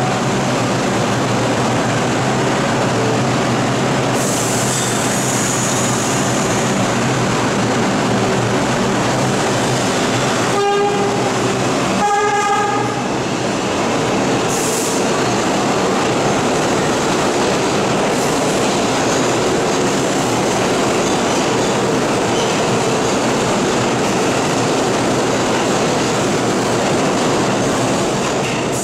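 New York City Subway R62A train pulling out of a station, a steady loud rumble of its motors and wheels on the rails as the cars pass. Two brief tones sound about ten and twelve seconds in.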